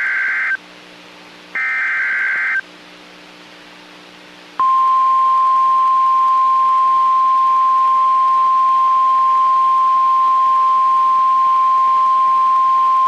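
NOAA Weather Radio alert sequence. One buzzy digital data burst of the SAME header ends just after the start and another lasts about a second. After a pause of about two seconds, the steady single-pitch warning alarm tone starts about four and a half seconds in, signalling that a warning (here a severe thunderstorm warning) is about to be read.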